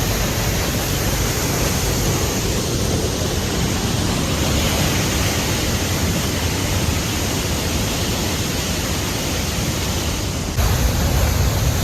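Steady rushing roar of a waterfall's falling water close by. Near the end it jumps suddenly louder and deeper.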